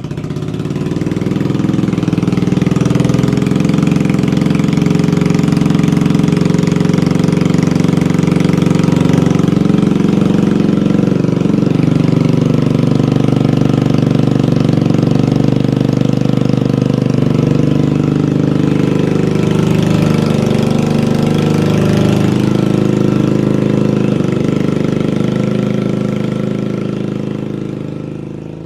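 Honda Ruckus 49cc four-stroke single running at a steady idle through an aftermarket MNNTHBX SP exhaust. It fades in at the start and fades out near the end.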